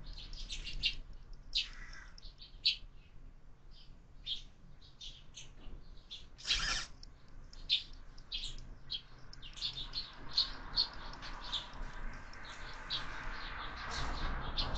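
House sparrows chirping: a busy run of short, high chirps, with one louder chirp about halfway through.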